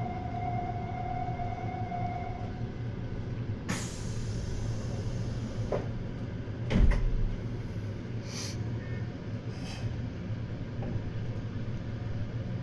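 Meitetsu 200 series electric train standing with its equipment humming steadily, a held tone sounding for the first couple of seconds. Then come several short air hisses and clunks, the loudest a heavy thud about seven seconds in: the sounds of doors and air brakes being worked before the train departs.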